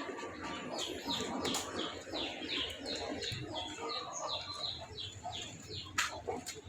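A long series of short, high chirping calls, each falling in pitch, about three a second, from an animal or bird, with a sharp click near the end.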